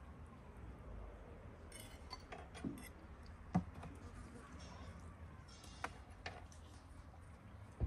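Metal forks clinking and scraping on ceramic plates while eating, a few scattered sharp clicks, the loudest about three and a half seconds in.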